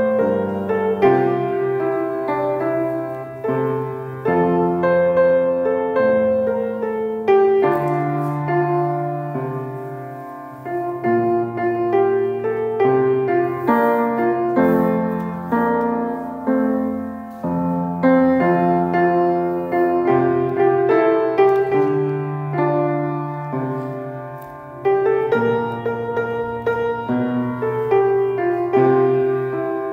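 Solo piano music: a gentle melody over held chords, with notes struck and left to ring, and two short dips between phrases.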